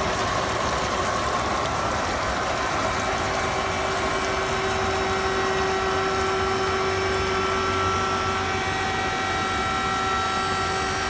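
Underwater concrete-cutting machinery running steadily: a constant motor hum with a steady whine that grows clearer a few seconds in.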